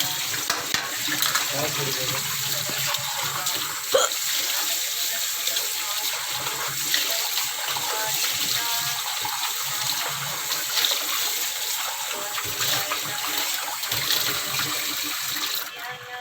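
Kitchen tap running steadily into a sink, turned off shortly before the end.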